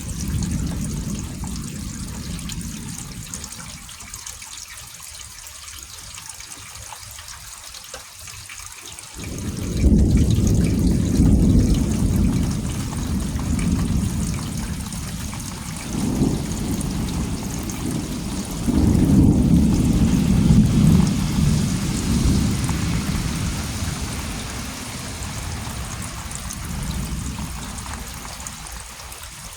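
Steady rain with a long rolling rumble of thunder. The rumble starts suddenly about a third of the way in, swells twice more and fades away near the end.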